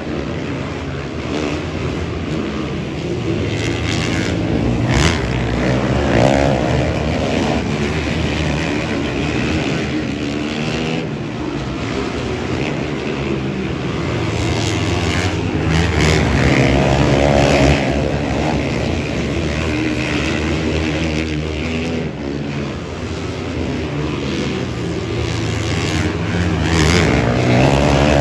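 Several racing engines running hard, revving up and down and passing by again and again, with overlapping pitches that rise and fall.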